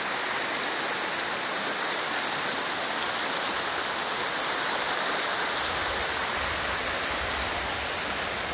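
A flooded creek's fast, muddy high water rushing past in a steady rush. A low rumble joins in about two-thirds of the way through.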